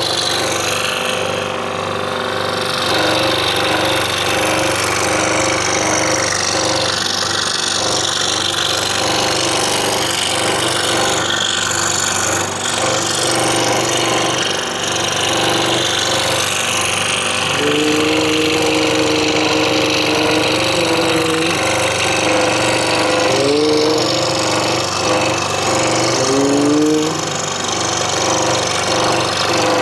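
Scroll saw running steadily with its blade cutting through a wooden puzzle board. In the second half a whining tone comes in and out several times, sliding up and down in pitch.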